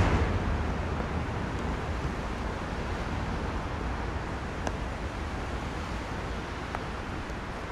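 Steady rumble and hiss of city traffic on rain-wet roads heard from high on a bridge, loudest at the start and easing off over the first couple of seconds, with a few faint clicks.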